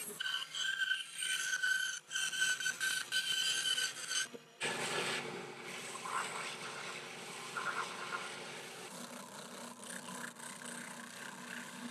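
A saw cutting through plywood. About four and a half seconds in, the sound changes abruptly from a steady pitched cutting noise to a rougher one.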